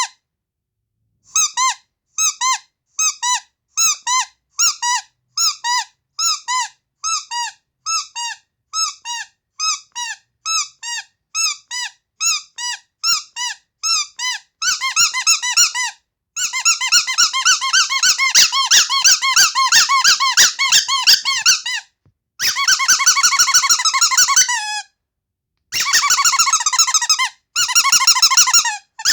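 Carrot-shaped rubber squeaky toy squeezed over and over. For about the first half it gives single squeaks, roughly two a second. Then it goes into fast, continuous squeaking in long runs with a couple of short breaks.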